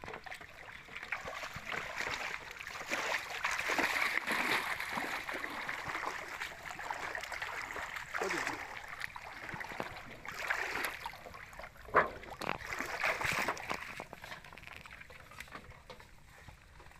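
Splashing and sloshing of shallow water as a person wades through it, coming and going in irregular surges, with one sharp knock about twelve seconds in.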